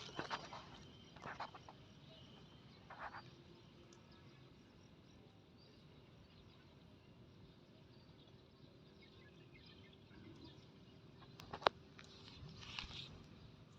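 Faint rural outdoor ambience with a low steady hum, broken by a few short rustling bursts in the first three seconds, a sharp click near the end, and a brief higher-pitched noise just after it.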